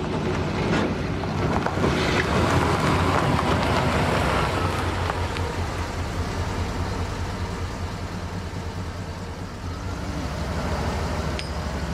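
Pickup truck engine running as the truck pulls away over a dirt track, loudest a couple of seconds in, over a steady low engine hum.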